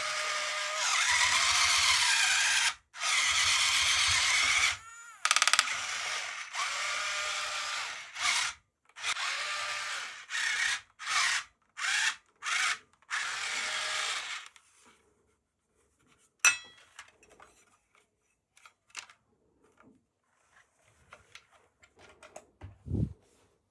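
A small motor whirring in repeated bursts of a few seconds each, its pitch bending as it runs, then a run of quieter clicks and taps with one sharp click.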